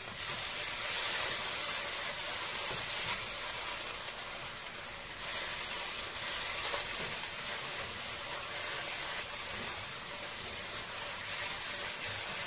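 A thick sauce of red pepper paste and tomato paste sizzling in a frying pan on the stove, with a steady frying hiss while a spatula stirs it.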